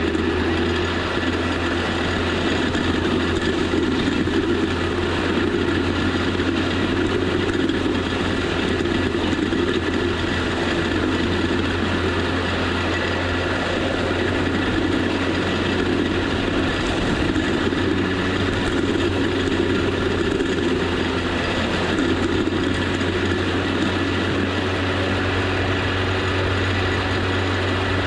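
John Deere 4030 tractor's six-cylinder diesel engine running steadily as the tractor drives along, a constant low drone.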